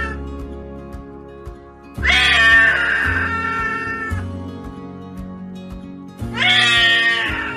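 A frightened house cat yowling: long drawn-out cries of about two seconds each, one about two seconds in and another starting near the end, with music underneath.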